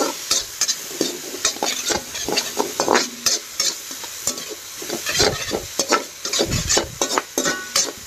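Chopped tomatoes and onions sizzling in hot oil in an aluminium kadai, stirred with a perforated metal spatula, with irregular scrapes and clinks of the spatula against the pan.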